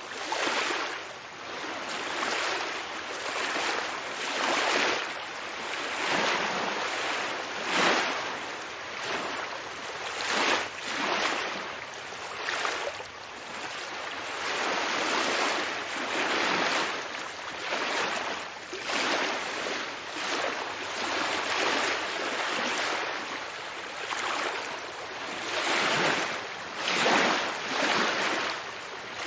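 Ocean waves washing in: a steady rush of surf that swells and ebbs every couple of seconds, with a few stronger surges.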